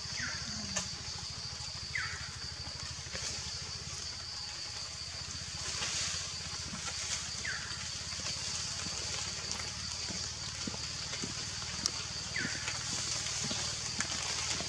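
Forest ambience: a steady high-pitched insect drone over a low rumble, with four short, falling bird chirps spread through.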